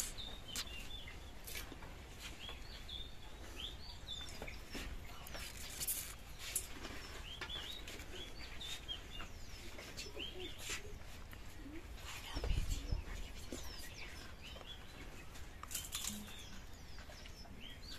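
Small birds chirping repeatedly in short calls, with a few sharp crisp crunches and clicks as puffed fuchka shells are bitten and eaten. A dull thump about twelve seconds in is the loudest sound.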